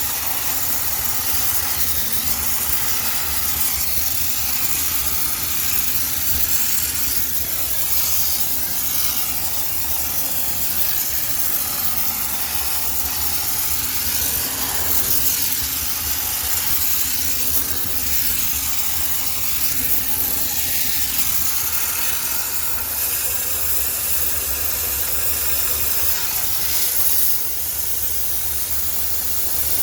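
High-pressure steam cleaner hissing steadily as its jet blows, with a low steady hum underneath.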